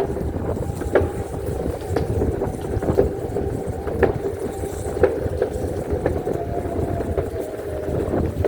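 A motor running with a steady hum and low rumble, its pitch dipping slightly near the end, and a sharp click about once a second.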